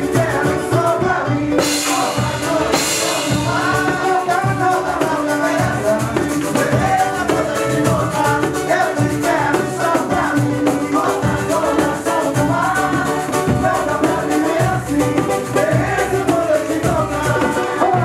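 Live band music with singing, backed by a cavaquinho, hand drums and a shaker. Bright shaker or cymbal hiss stands out about two seconds in.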